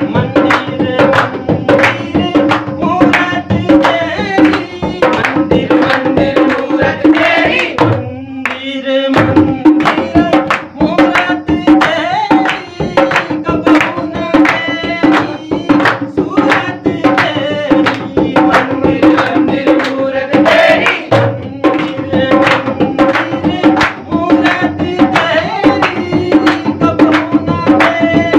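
A Shiva bhajan sung by a male voice over a dholak beating a quick, steady rhythm. The drum briefly drops out about eight seconds in.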